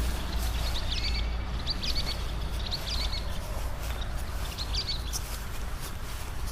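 A small bird chirping in short quick bursts, four or five times, over a steady low outdoor rumble.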